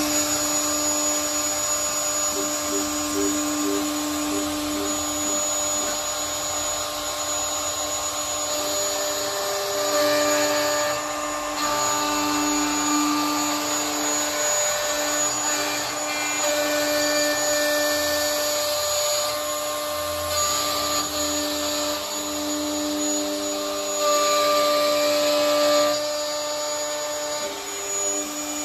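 Hitachi wood router on a Zenbot CNC machine running at speed and cutting through 3/4-inch wood: a steady motor whine, with tones that shift in pitch every few seconds as the machine's stepper motors drive the cutter along its path.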